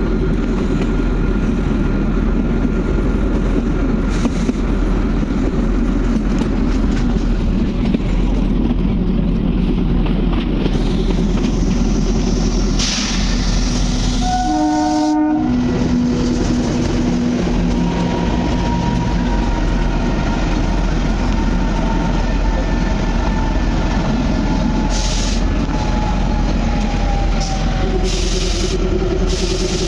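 Narrow-gauge toy train running, with a steady rumble of wheels and coaches. About halfway through, a diesel locomotive horn sounds once for about a second and a half. Afterwards a faint high whine drifts slowly down.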